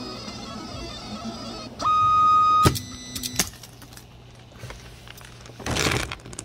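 3D printer's stepper motors whining at steady pitches through its last moves. About two seconds in, a loud steady whine holds for under a second, then a click, a lower whine and a few more clicks as the print head moves off the finished print. A short rushing hiss comes near the end.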